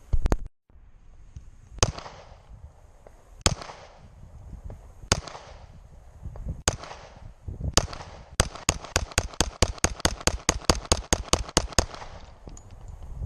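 Handgun shots at a firing range. Two quick shots come first, then single shots about a second and a half apart, then a fast string of about twenty shots at roughly six a second.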